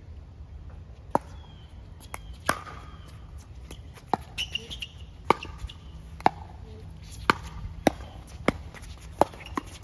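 Pickleball rally: sharp pops of the plastic ball off the paddles and off the hard court, about one a second.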